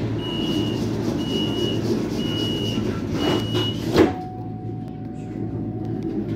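Tram door-closing warning: a high beep about once a second, four times, then the sliding doors shut with a sharp knock about four seconds in. A steady low hum from the tram runs underneath.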